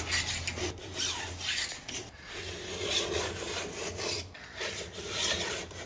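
A flat file in a ski-edge tuning jig scraping along the steel rails of a worn 32-inch Stihl chainsaw bar in repeated strokes, biting into the metal as it flattens the rails to an even plane.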